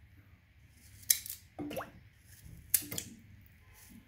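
Carrot being cut into chunks with a knife and the pieces dropped into a Thermomix's stainless steel bowl: a few short sharp knocks of carrot on metal.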